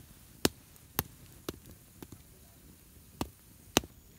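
Wood fire popping: sharp cracks, about two a second at first, then a few scattered ones.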